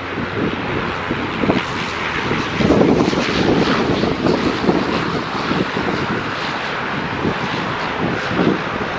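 Pilatus PC-24 business jet's turbofan engines running with a steady jet rush, while wind buffets the microphone in irregular gusts.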